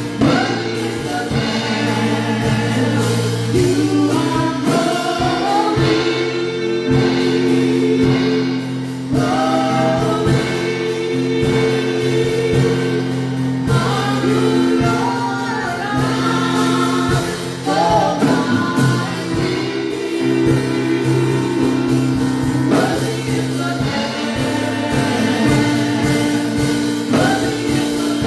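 Gospel worship team singing as a choir, with voices sliding between sustained instrumental chords held underneath.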